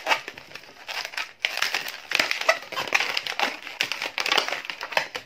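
Long green latex modelling balloon squeaking and rubbing in the hands as its segments are twisted and pushed through the middle, in uneven runs with short pauses.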